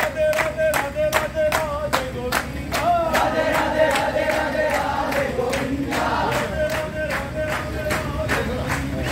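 A crowd of men chanting in unison to a simple sung tune, over a steady beat of hand-clapping about three to four claps a second.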